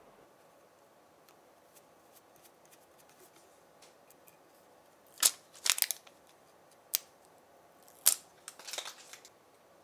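Sharp metal clicks and snaps from a helping-hands clamp stand, its alligator clips opening and shutting on a small card. The clicks come in two quick groups, about halfway through and again near the end, with faint handling ticks before them.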